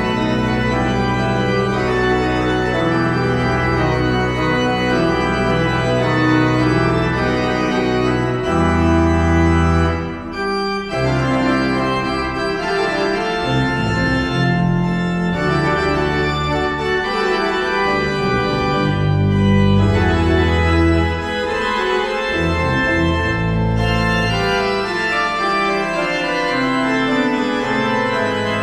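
Organ postlude: full sustained chords over a bass line that changes every second or two, with a brief drop in level about ten seconds in.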